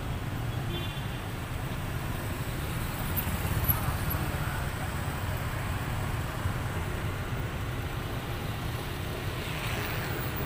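Road traffic: cars, motorbikes and a van passing, a steady low rumble of engines and tyres.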